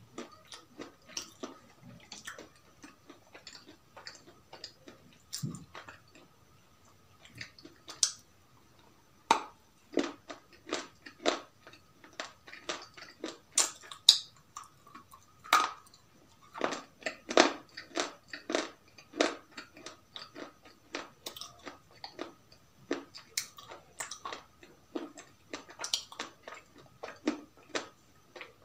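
Close-miked chewing and crunching of crisp food: irregular wet crunches and mouth clicks, several a second, thickest in the middle of the stretch. A faint steady tone runs underneath.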